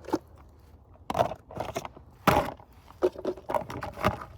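Irregular knocks and scrapes of things being handled, the loudest a little past halfway.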